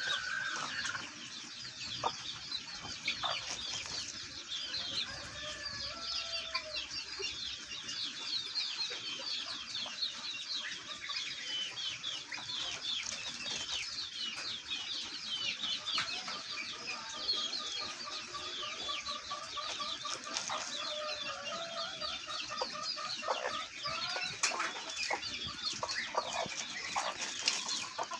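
Poultry calling in a yard: a constant chatter of short, high chirps, with a run of rapid repeated calls for several seconds past the middle.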